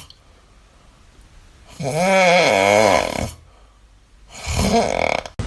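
Snoring: one long snore with a wavering pitch starting about two seconds in, then a shorter snore near the end.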